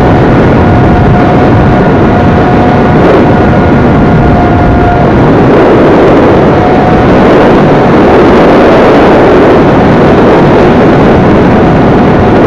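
Loud rushing airflow over the onboard camera of an XK A1200 RC plane in flight, with the steady whine of its electric motor. About five seconds in the whine stops, returns briefly a moment later, and then only the wind noise is left: the throttle is cut and the plane glides.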